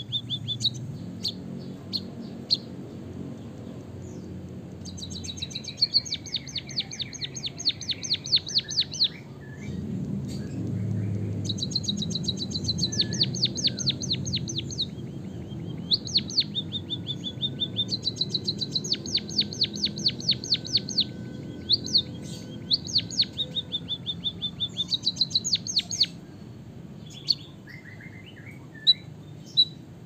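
White-headed munia singing a canary-style song: several long, rapid trills of sharp, high notes with short pauses between them, and scattered single chirps.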